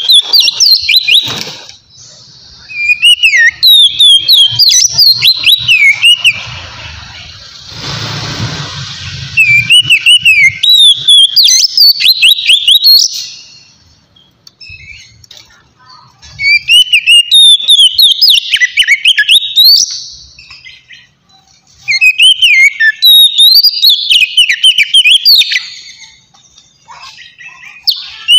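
Oriental magpie-robin (kacer) singing loud, clear whistled phrases (ngeplong) in about five bursts of rapid rising and falling notes, with short pauses between them. A brief rustling noise falls between two phrases, about eight seconds in.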